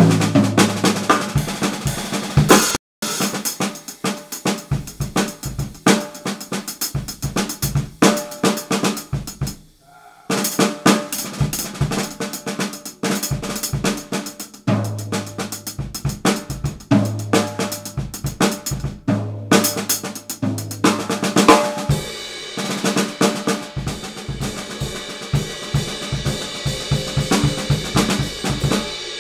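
Drum kit played solo: snare, bass drum, hi-hat and cymbals in a busy groove. It stops dead briefly about three seconds in. Deep ringing low drum hits come in the middle, and the cymbals wash continuously through the last several seconds.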